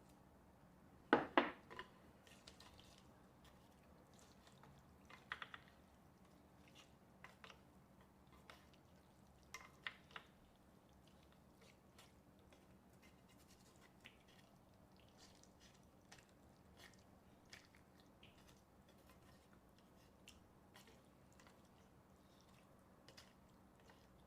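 A person eating spicy ramen noodles with Spam and tofu: faint chewing and small mouth sounds. A pair of sharp clicks about a second in is the loudest sound, and more clicks come around five and ten seconds in.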